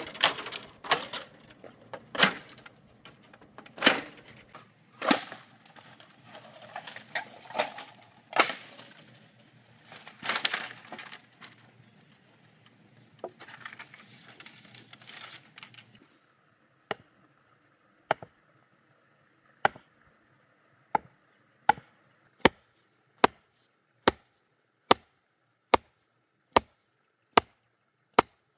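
Long split-bamboo strips and poles being handled and knocked against a bamboo frame, irregular clattering knocks. Then, about sixteen seconds in, a wooden stake being driven with a wooden piece, sharp single wood-on-wood blows about one a second, coming slightly faster toward the end.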